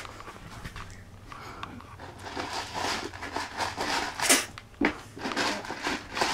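Irregular scratchy rustling and crinkling of a puppy pad under kittens scrambling and rolling on it, with scattered clicks and one sharp loud click about four seconds in.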